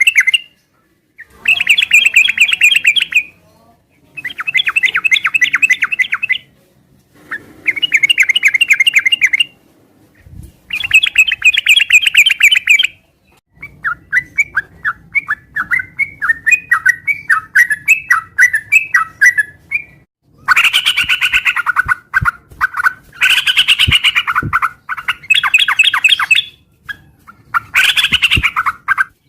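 Yellow-vented bulbul (trucukan) singing in full voice: bursts of rapid chattering notes about two seconds long with short pauses between them, and in the middle a longer run of varied notes that rise and fall.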